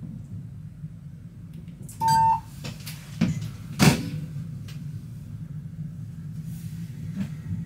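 Steady low hum inside an electric locomotive's cab. About two seconds in comes one short electronic beep, the loudest sound, followed a second or so later by two sharp clicks.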